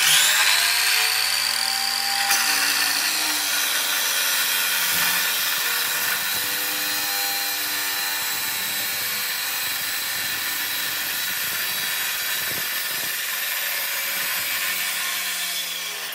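Abrasive chop saw cutting through a metal exhaust dump tube. The motor spins up at the start, the wheel grinds steadily through the pipe, and the motor winds down near the end.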